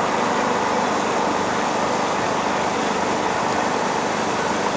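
Steady rushing background noise at an even level, with no distinct sounds standing out.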